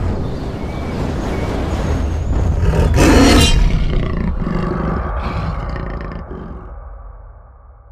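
A motor vehicle's engine running loud, peaking about three seconds in, then fading out.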